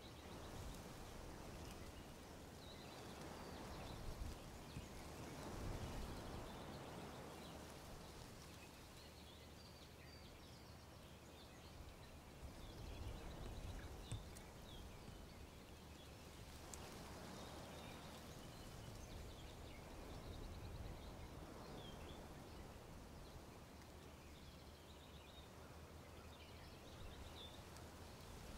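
Wind blowing through trees, the leaves rustling in gusts that swell and fade every few seconds, with small birds chirping faintly throughout.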